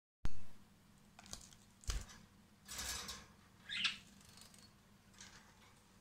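A yellow parakeet bathing in a shallow plastic tub of water, with a few short bursts of splashing and wing-fluttering about a second apart. A sharp knock sounds at the very start.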